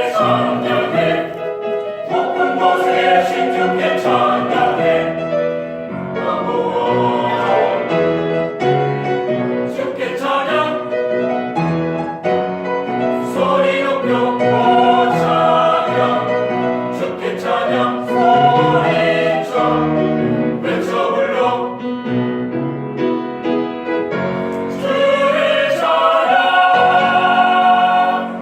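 A church choir singing a Korean praise song in harmony with accompaniment, the voices growing louder about 25 seconds in.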